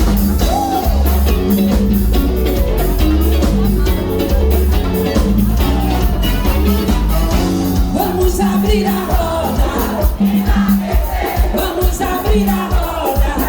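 A band playing upbeat music with a heavy bass beat, and a singer's voice over it.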